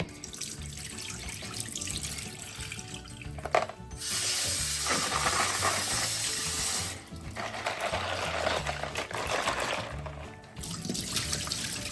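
Water from a kitchen tap running and splashing in a sink as crabs are washed; the flow is strongest for about three seconds in the middle.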